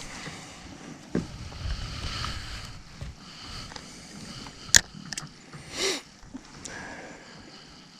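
Handling noises in a small fishing boat: low knocks and rustling, with one sharp click about five seconds in and a short hiss just after.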